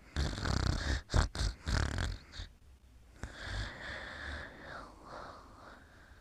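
Snoring in sleep: a quick run of loud, noisy breaths over the first two seconds or so, then one longer, quieter breath that drops in pitch near the end.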